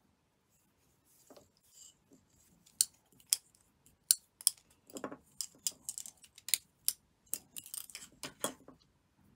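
Plastic tatting shuttles clicking and knocking against each other and against fingers as they are handled: an irregular series of sharp clicks starting about a second in, with some soft rustling of thread between them.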